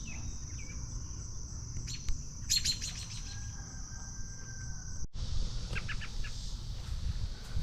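An American robin giving short, sharp calls, a parent bird calling above its nest, in two brief clusters, over a steady high-pitched insect drone that breaks off suddenly about five seconds in.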